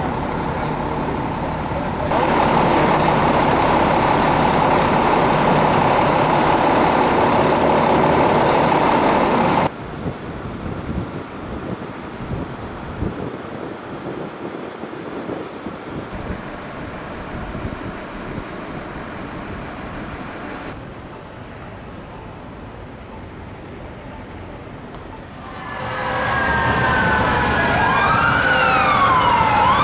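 Steady city street and traffic noise that drops in level about ten seconds in. Near the end several emergency-vehicle sirens fade in, wailing up and down in overlapping sweeps.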